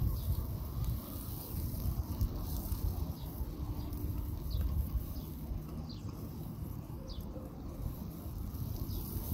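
Outdoor backyard ambience: faint short chirps of birds, about one a second, over a low steady rumble.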